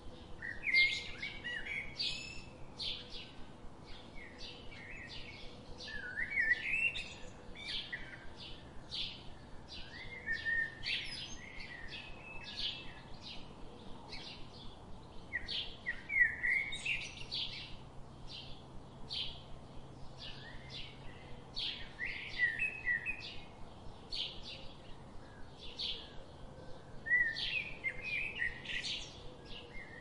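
Birds chirping and singing: a steady run of short, high chirps with a louder warbled phrase about every five seconds.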